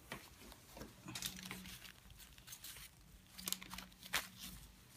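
Faint rustling and crinkling as gloved hands handle gauze on a paper drape, in a few short scattered bursts.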